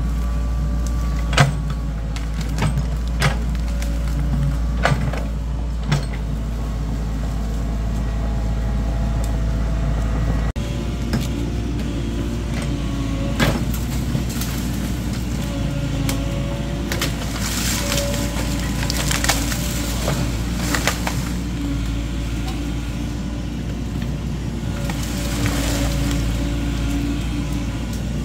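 Excavator's diesel engine running steadily, with scattered sharp knocks and clanks.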